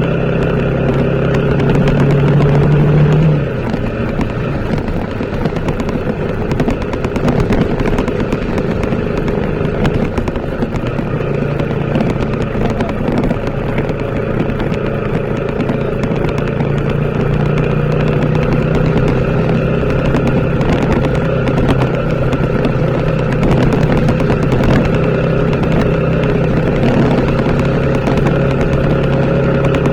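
TVS Apache RTR 160 4V's single-cylinder engine running while the bike is ridden. It pulls harder for the first few seconds, eases off sharply about three seconds in, then picks up again later.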